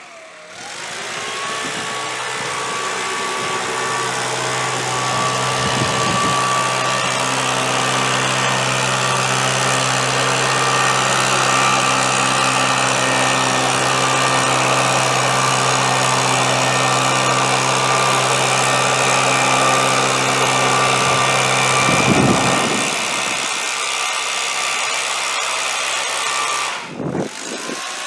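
Gas-powered leaf blower running steadily at speed, a small engine's hum under a loud rush of air. The low engine note drops away about three-quarters of the way through, and the sound dips briefly near the end.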